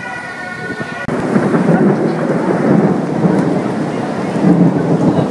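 Rolling thunder with rain: a loud, continuous low rumble that swells and fades. It cuts in abruptly about a second in, replacing a steady high tone.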